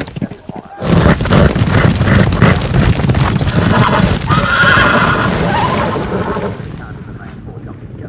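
Galloping racehorses, hooves drumming fast and dense, starting about a second in. A horse whinnies around the middle, and the sound fades down near the end.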